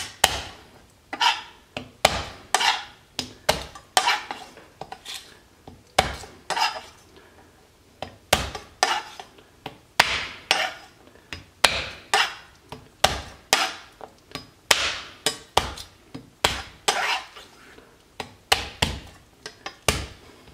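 Palm slapping the flat of a chef's knife to smash garlic cloves on a wooden cutting board: a run of sharp knocks, about one or two a second.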